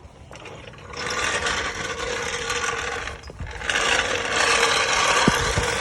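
Continuous mechanical rasping, as of a hand tool or mechanism at work. It starts about a second in, drops out briefly past the middle, then resumes louder.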